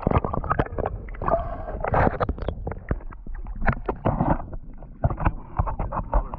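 Water splashing and gurgling in quick, irregular bursts around a hooked Arctic grayling at the surface of a shallow river.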